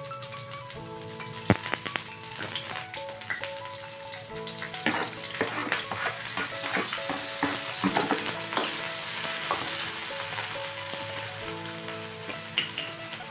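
Hot oil sizzling in a wok as ground spice paste is scraped off a plastic cutting board into it. The sizzle thickens and crackles once the paste lands, with a sharp knock about a second and a half in and a run of clicks and knocks in the middle.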